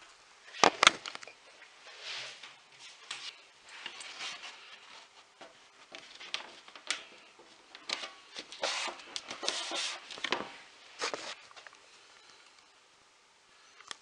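Cardstock pieces being handled: irregular rustling, scraping and sharp taps. Two loud sharp clicks come about a second in, and a run of rustles and taps from about eight to eleven seconds.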